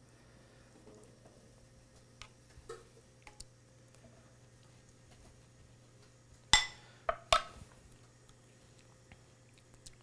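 Metal spoon spreading barbecue sauce over raw chicken in a non-stick pan: a few faint taps, then three sharp clinks in quick succession about six and a half seconds in.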